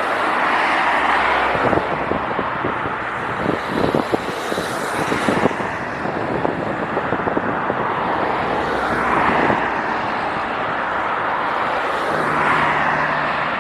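Steady engine noise outdoors that swells and eases every few seconds, with wind buffeting the microphone.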